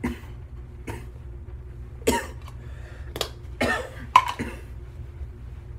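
A man coughing and gagging in about six short, harsh bursts, the loudest about two and four seconds in. It is a reaction to the taste of Skoal Citrus dip tobacco, which makes him want to throw up.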